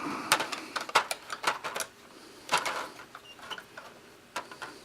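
Plastic clicks and knocks of the diffuser and clips being fitted on an LED light panel's frame, in quick irregular handling clicks, thickest in the first two seconds and again about two and a half seconds in.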